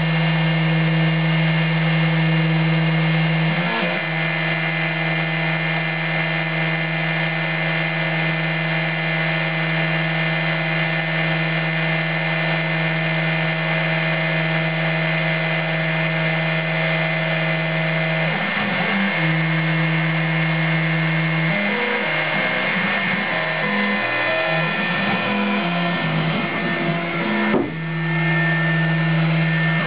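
Emco F1 CNC mill engraving a copper-clad PCB: the Proxxon high-speed spindle and the stepper-motor axis drives run with a steady whine. Near the end the machine's tones jump between pitches in quick steps as the cutter traces short moves.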